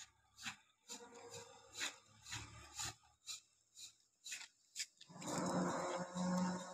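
A small hand-held tool scraping and rubbing grout into a crack in a concrete floor: about ten short rasping strokes, then a louder, longer rasping noise with a low hum under it for about a second and a half near the end.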